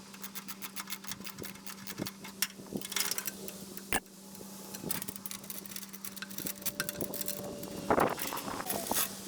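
Irregular metallic clinking and rattling over a steady low hum, with a louder clatter near the end.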